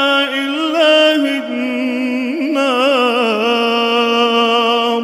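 A man's voice in melodic Qur'an recitation (tajweed), drawing out one long held note with small wavering ornaments and a slow slide down in pitch about three seconds in, breaking off at the end for breath.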